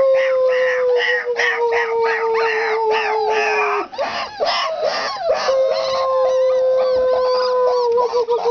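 Four-week-old puppies: one howls in long, steady, slowly falling notes, the first lasting about four seconds and another starting about five and a half seconds in, while the rest of the litter yelps and squeals in short high cries throughout.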